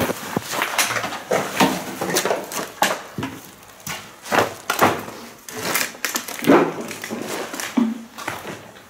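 Footsteps over loose rubble and debris: an uneven run of scuffs and knocks, roughly one to two steps a second.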